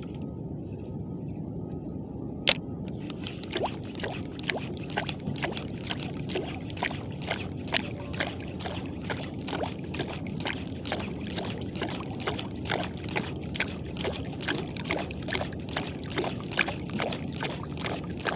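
Spinning reel being cranked in a fast jigging retrieve: rapid, irregular clicking that starts about three seconds in after one sharp click, over a steady low rumble of water against the boat.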